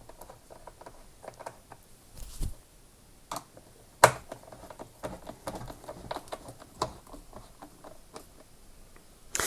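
Torx screws being refitted into a lawnmower's motor housing with a screwdriver: many small irregular clicks and ticks. There is a dull thump a little after two seconds, and a sharper knock about four seconds in.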